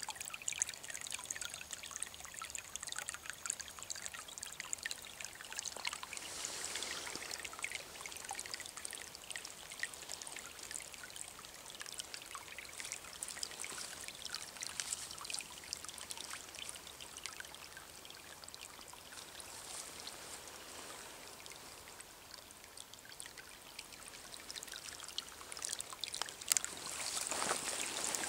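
Running water in a small stream, a steady rushing trickle full of tiny splashes and gurgles. It swells briefly about six seconds in and grows louder near the end.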